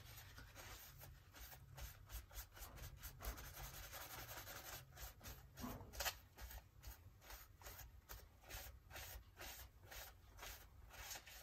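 Faint, scratchy rubbing of a paper tissue wiped over the painted moulded skull on a glass bottle, with scattered small ticks and scrapes of handling.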